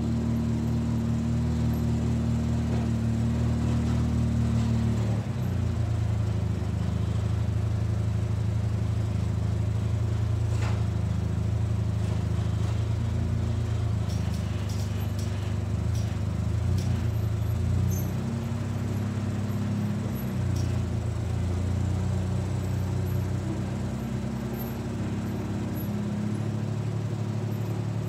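2004 Polaris Sportsman 600 ATV engine running steadily while plowing snow, its pitch shifting about five seconds in and again a few times near the two-thirds mark as the engine speed changes.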